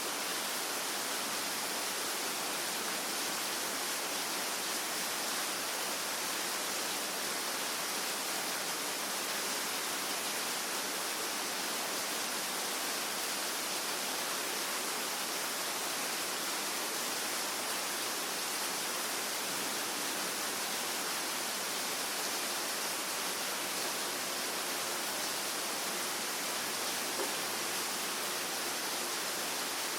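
Steady rain, heard as an even, unbroken hiss without distinct separate drops.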